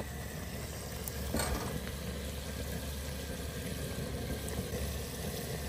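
Chicken deep-frying in a large stainless steel stockpot of hot oil: a steady bubbling sizzle, over the low steady rumble of the propane burner beneath the pot.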